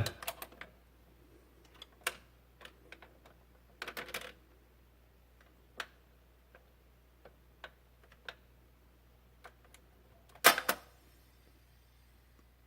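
Vinyl record playing through a quiet groove: sparse, irregular clicks and pops with a louder crackle about ten and a half seconds in, over a steady low hum from the Garrard turntable and receiver.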